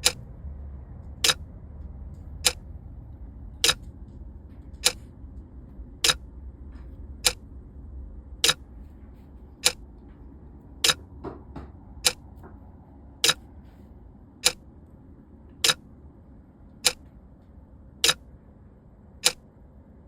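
Clock-style ticking sound effect: a single sharp tick about every 1.2 seconds, evenly paced, over a low hum that fades away about halfway through.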